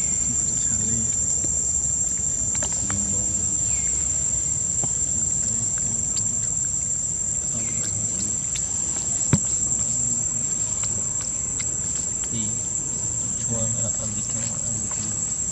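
Insects shrilling in one steady, unbroken high-pitched drone, over a low rumble. A single sharp click stands out about nine seconds in.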